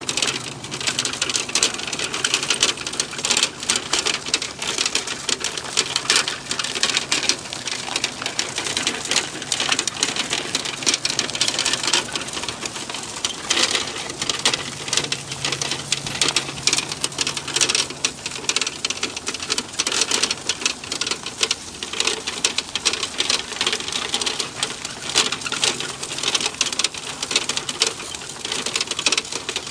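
Dog cart rolling along a paved trail behind two trotting dogs. Its frame, harness fittings and wheels rattle and clatter continuously, many irregular clicks a second over a steady hiss.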